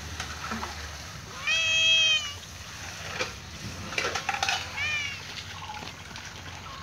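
Domestic cat meowing for food, twice: one long meow about a second and a half in, then a shorter meow that falls in pitch about five seconds in, with a few soft knocks between.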